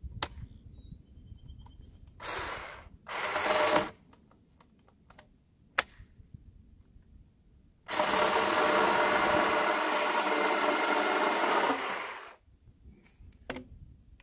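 Cordless electric chainsaw, running on an aftermarket drill battery, run in two short bursts, then cutting through the end of a wooden board for about four seconds.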